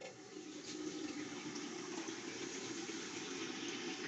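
Water rushing into a newly installed wall-hung ceramic urinal through its top inlet spud and running down the bowl, a steady flow that starts suddenly: a test flush of the new installation.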